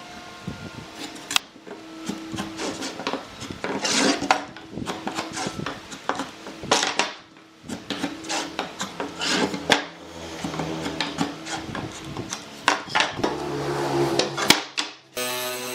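Pallet wood being handled and worked by hand: irregular knocks, clatters and scraping of wooden boards. Near the end it cuts suddenly to a steady buzzing machine sound.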